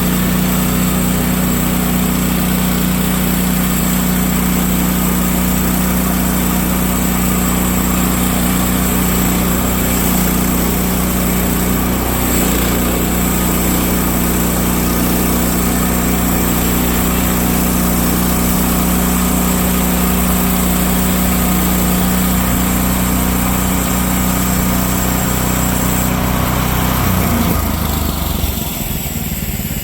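Gas engine of a Woodland Mills HM130 MAX portable bandsaw sawmill running steadily at full throttle while the blade cuts through a log, then dropping in speed and level about two seconds before the end.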